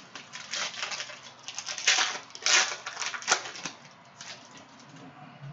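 Foil wrapper of a Panini Prizm basketball cello pack crinkling and tearing as it is ripped open by hand. The crackling comes in bunches, loudest between about two and three and a half seconds in, and eases off near the end.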